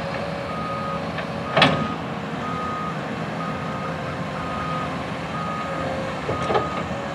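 Backup alarm of an asphalt dump truck reversing, beeping steadily about once a second over diesel engine rumble, with a fainter, lower-pitched beeping alongside. A single loud clank about a second and a half in, and a smaller knock near the end.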